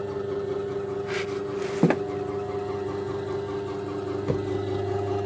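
Ratcliffe electric pottery wheel's motor humming steadily, with a sharp knock a little under two seconds in and a lighter click just past four seconds.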